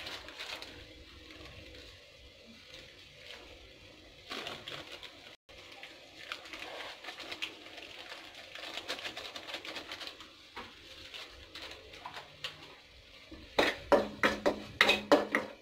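Masala frying gently in a nonstick kadhai with a faint crackle. Near the end a steel spoon stirs it, scraping and clinking sharply against the pan.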